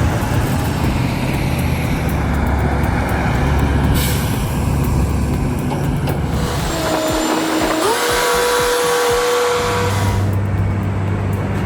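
Heavy truck's engine running steadily. About seven seconds in, a pitched tone sounds, steps up in pitch and holds for a couple of seconds.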